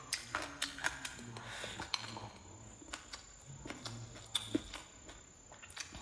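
Close-up eating sounds: chewing with irregular wet mouth clicks and lip smacks as cured pork and glass noodles are eaten.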